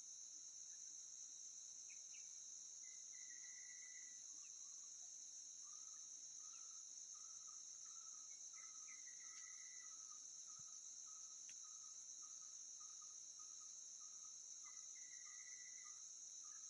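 Steady high-pitched drone of insects, crickets or cicadas, with faint short chirps repeating about twice a second through the middle and a couple of brief higher trills.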